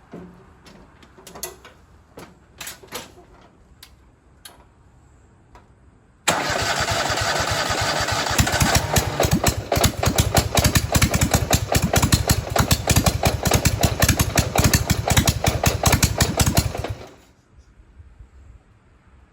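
Racing lawnmower's twin-cylinder engine, governor removed, comes on abruptly about six seconds in and runs loudly with a fast pulsing beat for about ten seconds, then cuts off. Before it, a few light clicks and knocks.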